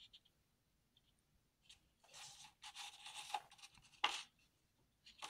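Sketchbook paper pages rustling and crinkling as they are handled: a rustle of about a second and a half starting about two seconds in, then a sharper crinkle about a second later.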